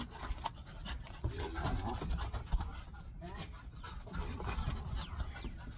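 Two dogs tugging at rope toys, panting and scuffling, with scattered short clicks over a low rumble.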